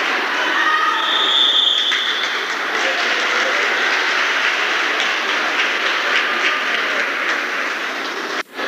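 Crowd noise in a gym during basketball play, with sneakers squeaking on the hardwood court; a high squeak is held for most of a second about a second in. The sound drops out for a moment near the end.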